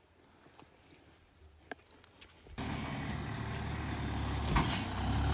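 Backhoe loader's diesel engine running steadily, coming in suddenly about halfway through after a quiet stretch of faint clicks. A single metallic clank sounds near the end.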